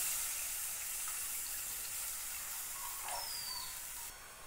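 Water poured from a cup into a hot frying pan of fried masala paste, a steady hiss that eases off and drops away about four seconds in.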